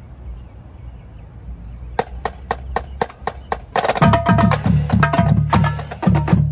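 Marching drumline opening a cadence: after a low background rumble, eight even stick clicks at about four a second count off. About four seconds in, the full line enters together, with snare drums, tenor drums, pitched bass drums and cymbals playing a fast cadence.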